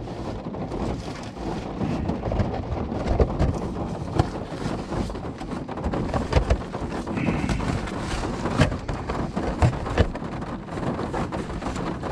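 Rain pattering steadily on a car roof, heard from inside the cabin, with irregular rustles and knocks of gear being stuffed into a backpack.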